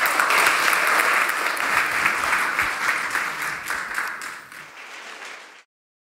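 Audience applauding, many hands clapping together. The applause thins out from about four seconds in and cuts off suddenly near the end.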